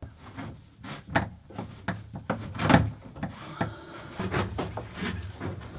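New red and blue plastic plumbing hoses being pulled through a cramped wooden locker, rubbing and knocking against the woodwork in irregular bumps and scrapes, the loudest knock nearly three seconds in.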